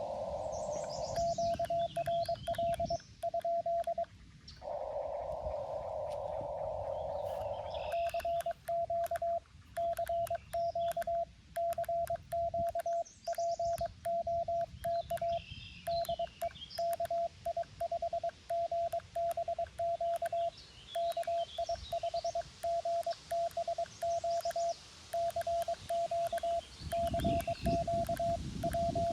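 Morse code sidetone from a Xiegu G90 transceiver: one steady tone keyed in dots and dashes. A short QRL query is followed by a few seconds of narrow-filtered receiver hiss while the operator listens, and then a longer call, which runs on to the end. Birds chirp faintly in the background.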